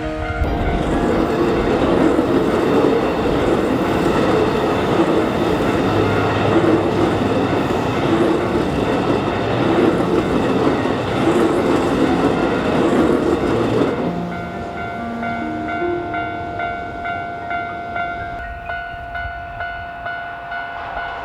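Hankyu 9300 series electric train running on the rails, with loud wheel and running noise for about fourteen seconds. It then turns quieter, leaving steady and stepping motor-like tones.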